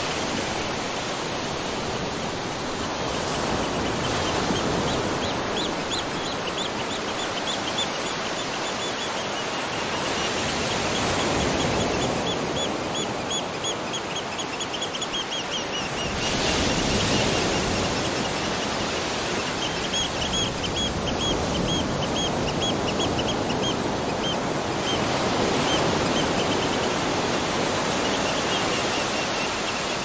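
Waterfall rushing steadily over rocks, swelling a little in the middle. Over it, a bird repeats a quick series of high chirps in several bouts.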